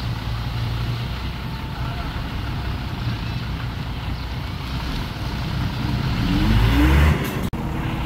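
Heavy diesel earthmoving machinery running under steady load; near the end the engine rises in pitch and gets louder, then the sound breaks off abruptly before steady running resumes.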